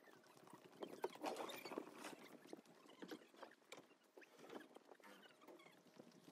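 Faint, irregular footsteps and light taps on wooden deck boards.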